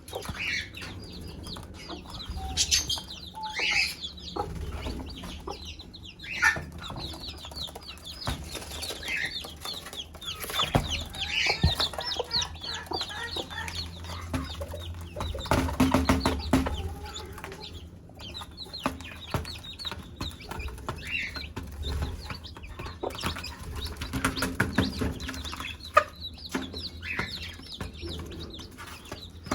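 Mother hen clucking among her chicks, which keep up many short high peeps: the hen's food call to her brood.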